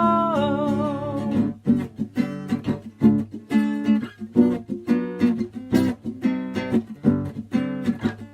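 Guitar strummed in a steady rhythm as an instrumental break in a song. A held sung note with vibrato fades out in the first second or so.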